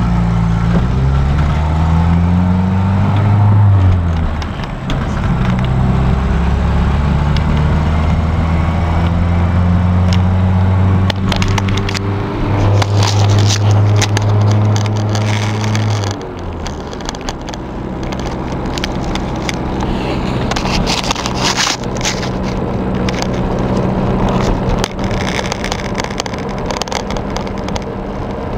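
Jeep Comanche pickup engine heard from inside the cab while driving: it rises in pitch as the truck accelerates in the first few seconds and again later, then drops suddenly just past halfway to a lower, steady running tone. Light clicks and rattles come through here and there.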